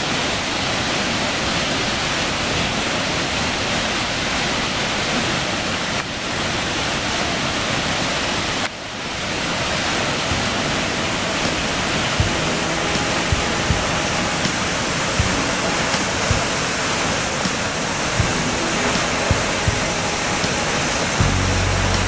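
Steady rushing of the Opasny waterfall, the Mutnaya River's single 80-metre drop into a canyon, with brief breaks about six and nine seconds in. From about halfway, scattered low thumps sound under it.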